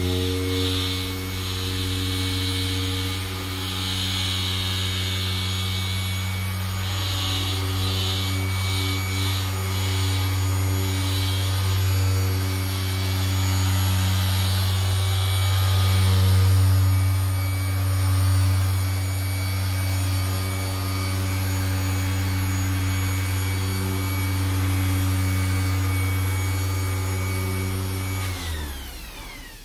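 Bosch electric random orbital sander with a buffing pad running steadily on a cured epoxy-resin table top: a constant motor drone with a shifting hiss from the pad on the resin. Near the end the motor winds down and stops.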